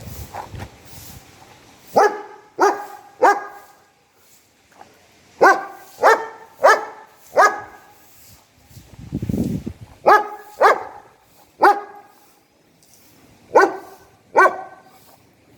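German Shepherd barking in short bursts: about a dozen deep, loud barks in groups of three, four, three and two, with pauses between. A low rumble comes in one of the pauses, a little past the middle.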